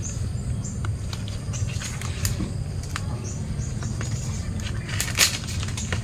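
Plastic bag around a hanging jackfruit rustling and snapping as it is handled, with a few sharp clicks, the loudest about five seconds in, over a steady low rumble. Faint high bird chirps now and then.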